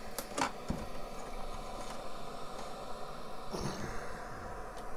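Steady static hiss from the Sony CDF-760 boombox's FM tuner on a weak station, with a few sharp clicks in the first second as the telescopic antenna is pulled up.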